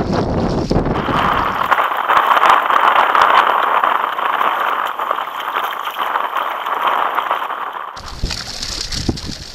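Water sloshing and splashing against a kayak in shallow surf. About a second in, a cut brings a steady, muffled rushing noise that lasts several seconds, and the sound changes again near the end.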